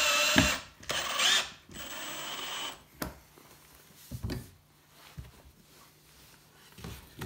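Cordless drill driving a screw through a plastic end cap into a plastic ventilation duct, in three short runs, the motor whine rising in pitch during the runs. It is followed by a few light knocks as the plastic tube is handled.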